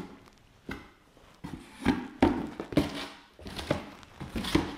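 Cardboard moving boxes being handled and their flaps folded, giving an irregular series of knocks and thuds, several close together around the middle.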